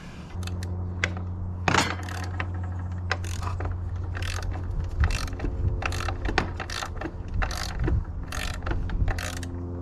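Hand socket ratchet being worked in repeated short swings, a burst of clicking about every half second to second, over a steady low hum.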